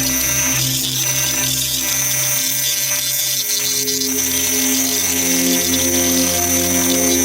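A power tool running steadily under background music.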